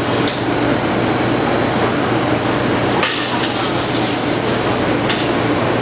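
Steady room noise with a low hum, broken by a few sharp clicks and clatters: one about a third of a second in, one around three seconds in and one around five seconds in.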